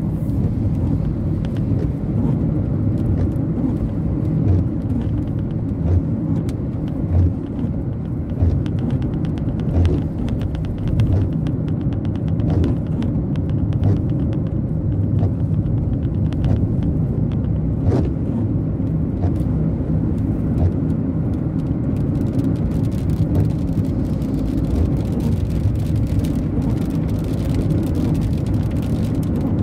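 Car driving in rain, heard from inside the cabin: steady low road and engine noise, with scattered light ticks of raindrops striking the windscreen.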